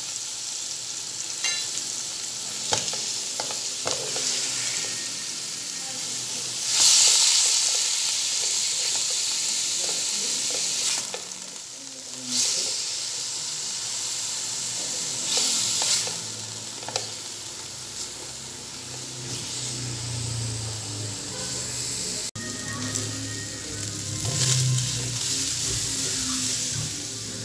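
Diced beef with garlic and ginger sizzling in hot oil in a pan, stirred and turned with a spatula. The sizzle swells loudly several times as the meat is turned.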